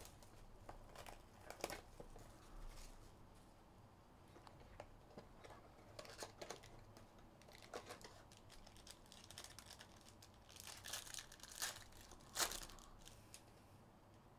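Faint crinkling and tearing of a trading-card pack's wrapper as it is opened by hand, with scattered light rustles and clicks and a busier burst of crinkling about ten to twelve seconds in.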